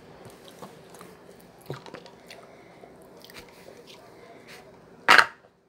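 Close-up chewing with small crunching clicks. About five seconds in there is one loud bump, and then the sound cuts off abruptly.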